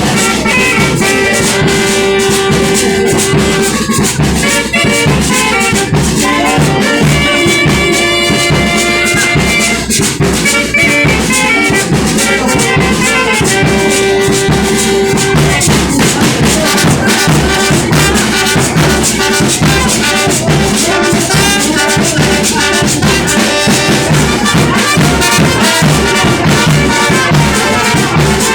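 Loud brass band music: held brass notes over drums keeping a steady beat.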